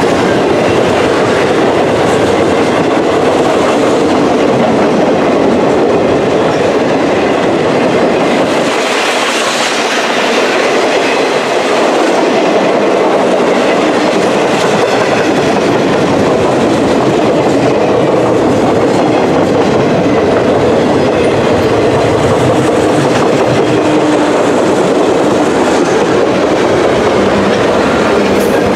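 A work train's cars rolling past at close range: a loud, steady rumble and clatter of steel wheels on the rails.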